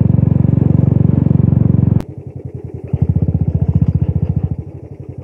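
Motorcycle engine running as the bike is ridden, heard from on the bike as a steady chug of firing pulses. About two seconds in, the sound cuts abruptly to a quieter stretch of the same engine, which grows louder for about a second and a half and then eases off.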